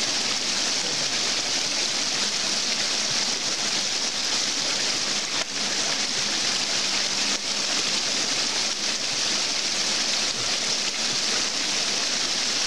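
Small snowmelt runoff stream splashing down a little cascade under a log, a steady rushing of water.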